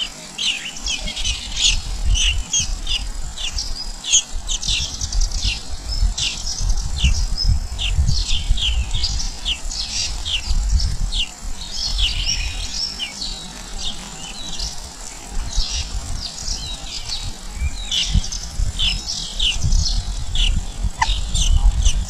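Songbird nestlings begging: a dense run of short, high, downward-sweeping chirps that continues throughout, with a low rumble underneath.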